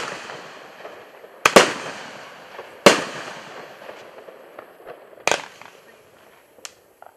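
An 18-shot consumer firework cake (Starget 'Who Is the Singer?') firing. There are four loud bangs, the first right at the start and the rest spaced about one and a half to two and a half seconds apart, each trailing off with echo. Two smaller pops come near the end.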